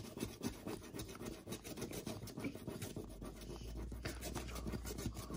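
A finger scratching the silver scratch-off coating on a printed paper map, a rapid run of short scratching strokes.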